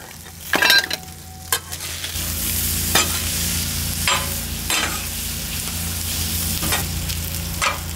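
Cubed brisket sizzling on a hot flat-top griddle, getting louder about two seconds in. A metal spatula scrapes and clacks against the steel plate several times as the meat is stirred and turned.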